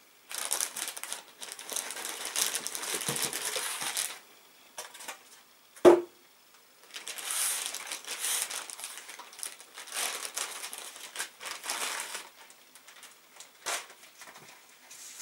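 A plastic bag crinkling as it is handled and peeled off a figure, in two long stretches, with a single sharp knock about six seconds in.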